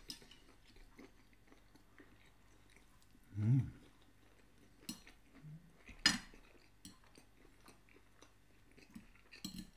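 A person eating toasted bread topped with fried mushrooms: quiet chewing and biting, with a few sharp clicks, the loudest about six seconds in.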